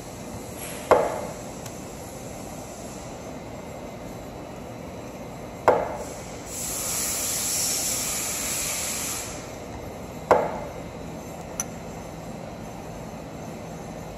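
Three sharp metallic knocks about four to five seconds apart, each ringing briefly, from broaching strokes on a Bridgeport milling machine cutting a grip surface into a workpiece. A hiss lasts about three seconds between the second and third knock.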